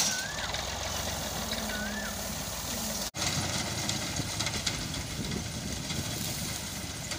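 Diesel tractor engine running steadily under load while driving a front-mounted wheat reaper. The sound cuts out for an instant about three seconds in, after which the engine hum carries on with light crackling of dry wheat straw.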